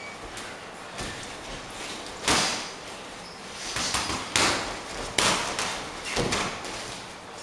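Boxing gloves landing punches in sparring: about five sharp smacks, irregularly spaced, with the loudest a little over two seconds in and around four and a half and five seconds in.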